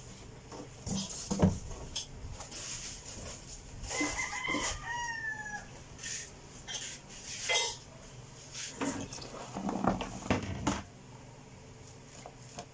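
Hard plastic incubator casing knocking and clattering as it is handled, with several sharp knocks. About four seconds in, a rooster crows once, a call of under two seconds that rises and then falls.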